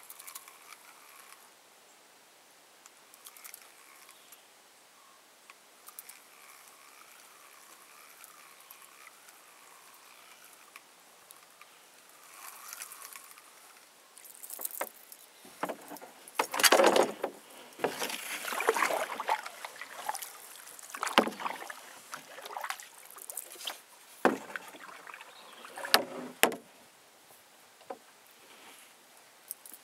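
Paddle strokes splashing in lake water from a small paddled boat, a run of strokes with a few knocks against the hull in the second half after a quiet stretch.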